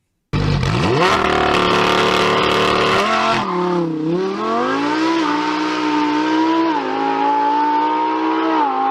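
Lamborghini Huracán Performante's V10 held on launch control, then launching: the revs dip and climb, then step through a few quick gear changes. The launch-control sound is described as sounding odd ("suena raro").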